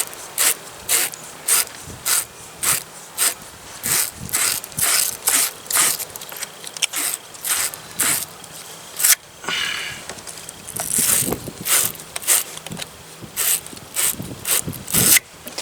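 Hand tool working on a car battery terminal: short sharp clicking strokes about twice a second, with a brief pause and a hiss about ten seconds in before the strokes resume.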